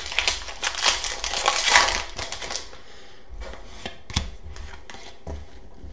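Foil Pokémon booster pack wrapper being crinkled and opened: a dense crackling rustle for about two and a half seconds, then a few soft clicks and taps as the cards are handled.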